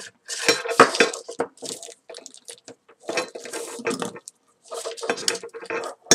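Paracord being stitched through a woven cobra-knot collar with a metal lacing needle: the cord rustles and scrapes as it is pulled through, with light metallic clinks, in three spells.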